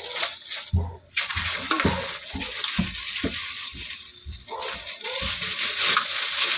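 A plastic bag crinkling and water sloshing in a kitchen sink as shellfish are gathered into the bag, with irregular dull knocks.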